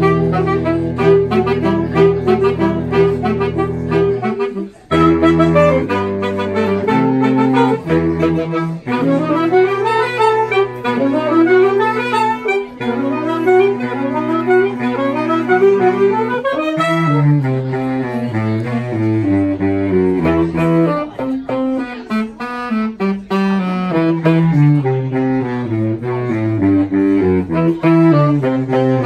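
Saxophone choir playing in harmony over a low saxophone bass line. Held chords at first, a brief break about five seconds in, then quicker repeated figures over a moving bass.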